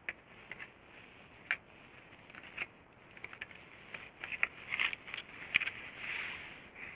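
Handling noise from the disassembled plastic headlight and the clear plastic sheet under it: scattered light clicks and crinkling, thicker in the second half, with a longer rustle about six seconds in.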